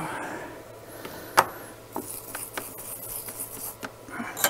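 Soldering a motor wire to an ESC pad: small scraping and rubbing of the iron and wire at the joint, with a few sharp clicks, the loudest about a second and a half in.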